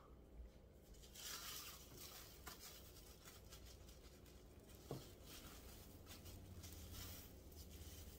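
Faint scraping and rustling of dry flour being scooped with a measuring cup and poured into a bowl, with a single light tap about five seconds in.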